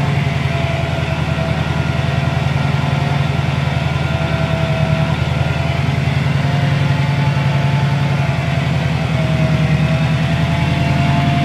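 Subaru WRX STI's turbocharged flat-four engine idling steadily, with a faint whine wavering slightly in pitch above the idle.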